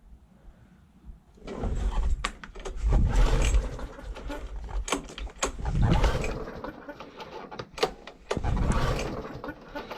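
Old petrol lawn mower being pull-started: the recoil starter cord is yanked several times, turning the engine over without it catching. It starts about a second and a half in.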